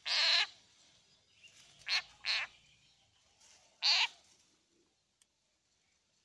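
Frog giving four short distress calls, a bleat-like cry given when a snake has hold of it: one at the start, a quick pair about two seconds in, and one near four seconds.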